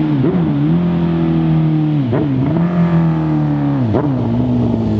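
Suzuki Hayabusa's inline-four engine breathing through a Toce S-Series aftermarket exhaust canister, running hard as the bike rides toward the camera. The engine note drops sharply and comes back three times, about two seconds apart.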